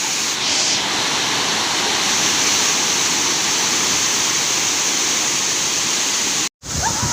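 Waterfall: a loud, steady rush of heavily falling water. It cuts out for a moment near the end.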